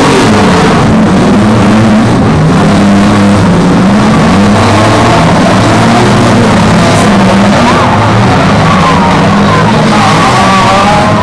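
Several small demolition-derby cars' engines revving and straining as they push and ram one another, the pitch rising and falling throughout.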